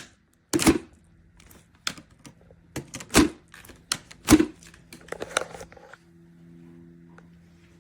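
A series of sharp clicks and knocks, irregularly spaced and loudest in the first half, over a faint steady hum.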